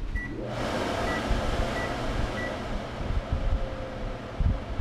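The vent fan of a GE Adora over-the-range microwave switching on: it whirs up, rising in pitch within the first second, then runs steadily. Four short high beeps from the keypad come in the first two and a half seconds.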